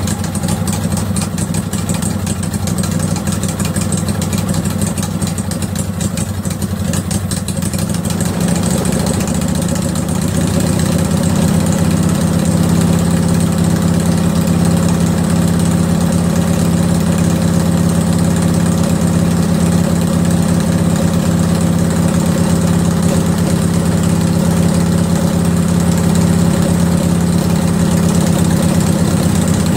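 Kohler Command 20.5 hp V-twin engine of a Craftsman lawn tractor idling while its carburetor's fuel mixture screw is adjusted. The running is uneven for about the first ten seconds, then settles into a steadier, slightly louder idle.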